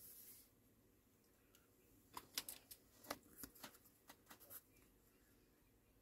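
Faint crinkling and small clicks of paper and washi tape being handled and pressed onto a planner page, a quick cluster of them starting about two seconds in.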